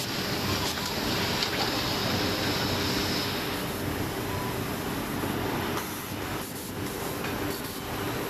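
Muratec automatic cone winder running in a spinning mill: a steady, dense mechanical noise from its many winding heads, with a high hiss that eases about three and a half seconds in and a few faint clicks.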